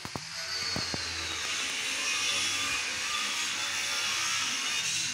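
A motor running steadily with a whirring hum and a high whine, starting just after the beginning and stopping near the end.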